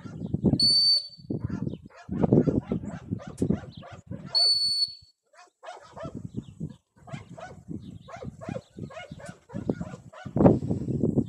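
Two short, steady, high blasts of a dog-training whistle, about four seconds apart, the first just under a second in, with rough, uneven rumbling noise between and around them.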